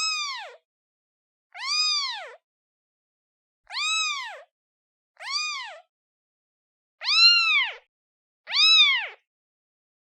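Newborn kitten meowing for its mother: six high-pitched mews in a row, each rising then falling in pitch, about one every one and a half seconds, the last two louder.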